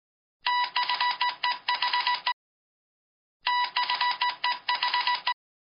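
Electronic typing sound effect: rapid clicks over a steady high beeping tone, in two bursts of about two seconds each with a short silent gap between them.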